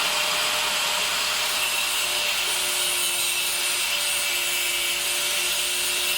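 A drill bit being sharpened against an abrasive: a steady rubbing, grinding hiss.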